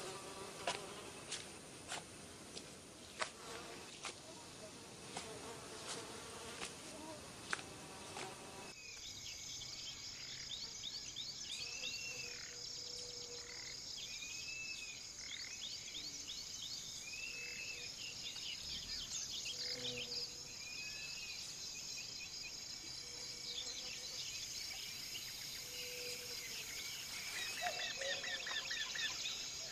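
Summer forest sound: insects buzzing, with sharp snaps of twigs and branches as people push through undergrowth, for the first several seconds. After an abrupt change about nine seconds in, a dense chorus of insects and birds follows, with a short arched whistle repeating about every second and a half and a lower call every few seconds.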